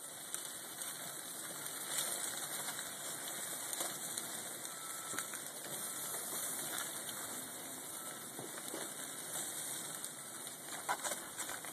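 Food sizzling on a hot grill: a steady hiss with a few faint ticks.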